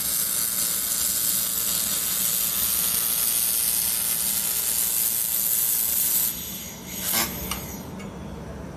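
Handheld 1 kW fiber laser welder running a seam on thin steel sheet: a loud steady hiss that stops abruptly about six seconds in, followed by two short bursts about a second later.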